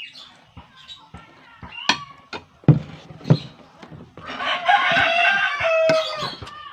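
A rooster crowing once, a long call of about two seconds that drops in pitch at the end. Before it come two sharp knocks about half a second apart.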